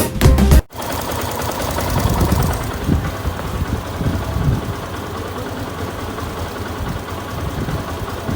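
Yamaha FZ-S V2's single-cylinder engine idling steadily after a timing chain adjuster repair, which the owner says has brought its sound roughly back to normal. A short end of background music comes first.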